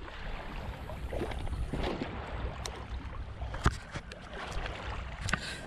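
Small waves lapping on a shingle shore with wind rumbling on the microphone, and a few sharp clicks scattered through.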